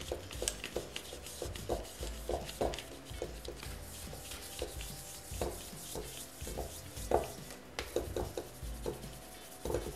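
Plastic cake smoother rubbing and pressing against sugar paste (fondant) on a cake and its board, with a string of soft, irregular knocks and scrapes.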